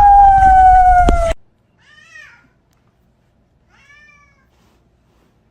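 Domestic cat meowing: one long drawn-out meow, its pitch sagging slowly, cuts off abruptly just over a second in, followed by two short faint meows a couple of seconds apart.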